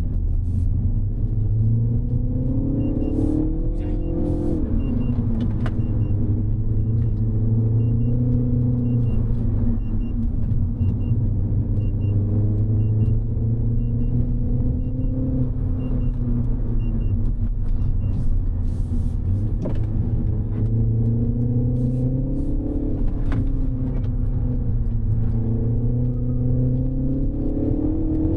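Mini Cooper S's turbocharged four-cylinder engine pulling and easing off in turn, its pitch rising and falling several times as the car accelerates and slows. A faint beep repeats evenly through the first half.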